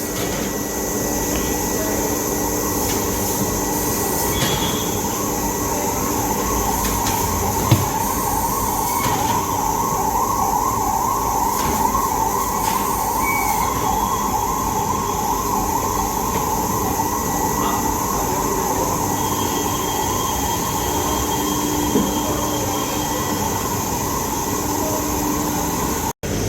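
Steady machine running with a wavering, rippling squeal, as the motorcycle's front tyre is worked off its wheel rim. One or two sharp clicks stand out, one about eight seconds in and one near the end.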